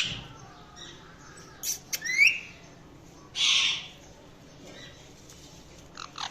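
Indian ringneck parakeet calling: short sharp chirps about two seconds in, a harsh squawk a little later, and a few brief calls near the end.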